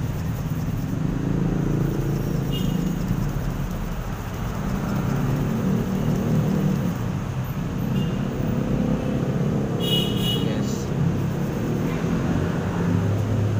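Steady low rumble with a faint hiss over it, and a brief high squeak about ten seconds in.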